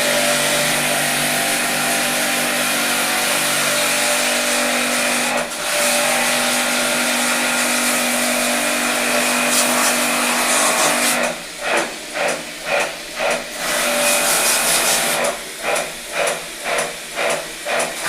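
A motor-driven machine runs with a steady hum and a loud hiss of air or spray. Later it is interrupted by two quick runs of short dips, about two a second.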